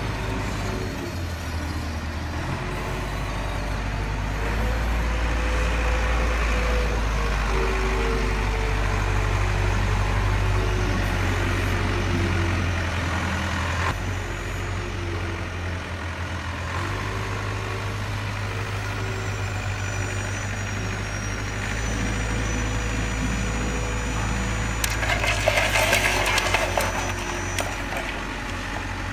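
Radio-controlled toy track loader running, with a steady low engine-like drone and the whine of its small electric motors rising and falling as it drives and works its bucket. Near the end, a bucketful of stones tips into a toy dump truck's bed and rattles in.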